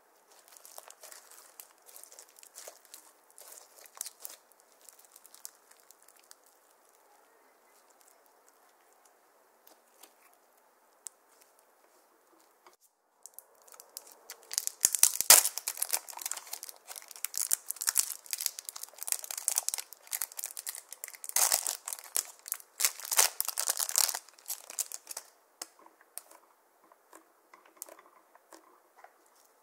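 Soft, sticky crackles of slime being squeezed by hand. About halfway through comes loud crinkling and tearing of a thin plastic wrapper as it is opened, lasting about ten seconds. Near the end there are faint crackles as the contents are pressed into clear slime.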